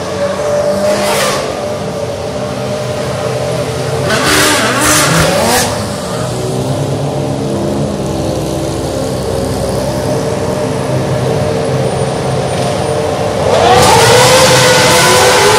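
Formula One cars' 2.4-litre V8 engines. Cars pass close by one at a time, one around a second in and another about four to five seconds in, with the pitch rising and falling as each goes by. Engines run steadily on the grid. About fourteen seconds in the sound suddenly gets much louder as many engines rev up together, rising in pitch.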